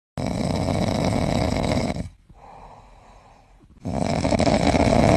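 Loud, rough snoring in two long snores of about two seconds each, with a quieter breath between them.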